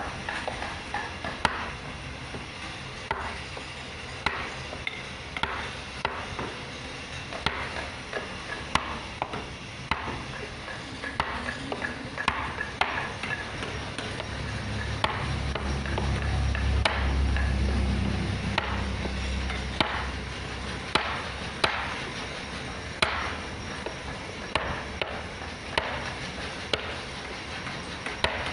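Wood-carving chisel being struck into a wooden board, giving short, sharp, irregular taps about one to two a second. Around the middle a low rumble swells up and fades away under the taps.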